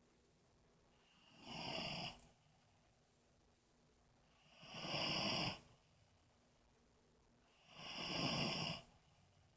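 A heavyset man snoring deeply while passed out drunk: three loud snores, each about a second long, coming roughly every three seconds with quiet breaths between.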